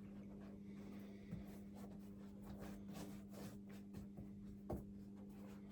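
Faint, soft strokes of a paintbrush working water-based firestop coating onto the edges of a fire batt, over a steady low hum.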